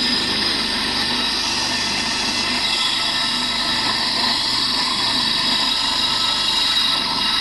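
Electric motor spinning a large abrasive grinding stone, with a T-25 tractor valve cover pressed flat against it, steadily grinding down the warped sealing flange that let oil leak past the gasket.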